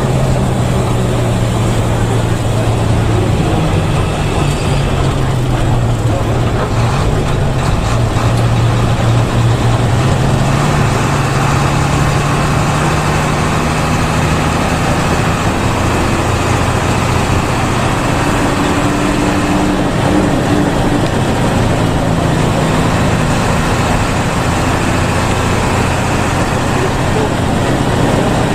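Intercity bus under way, heard from inside the cabin: a steady low engine drone over tyre and road noise, the engine note drifting up and down a little.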